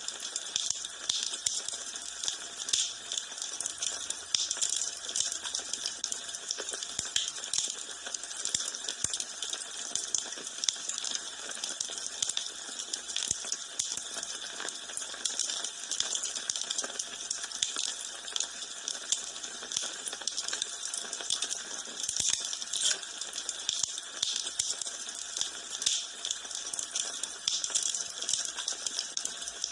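Wood fire in a fireplace crackling, with a dense run of small snaps and pops.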